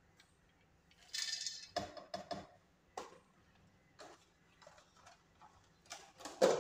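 Kitchen utensils and containers being handled on a countertop: a brief rustling scrape about a second in, then a series of light knocks and clinks. The loudest knock comes near the end.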